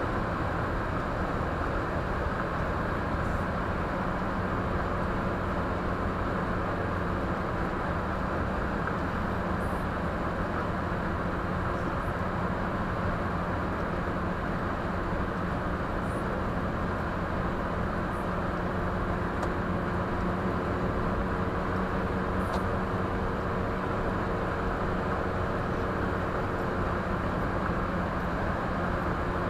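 Steady road noise of a car driving, heard from a dashcam mounted inside the cabin: tyre and wind rush with a low, steady engine hum underneath.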